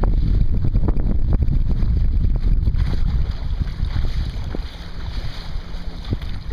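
Wind buffeting the microphone while a Sunfish sailboat moves under sail, with water slapping and rushing along its hull. The wind rumble eases about two-thirds of the way through, leaving the water hiss and splashes more to the fore.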